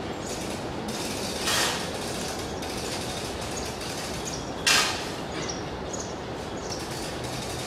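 Long-handled metal scraper dragged through a heap of sand: two short, loud scrapes, one about a second and a half in and a louder one near five seconds, over a steady background hiss.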